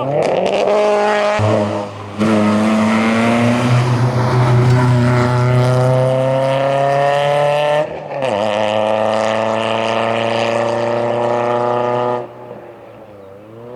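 A Citroën Saxo hillclimb car under full throttle, its engine note climbing steadily, with a quick upshift about eight seconds in before it pulls hard again. The sound drops away sharply a couple of seconds before the end. In the first second or so a falling engine note cuts abruptly to the new run.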